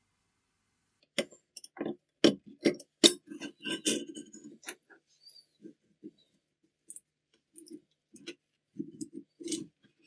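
Irregular sharp clicks, knocks and metallic clinks of tools and small metal parts being handled during restoration work on a vintage milkshake machine. They start about a second in, come thickest over the next few seconds, and bunch up again near the end.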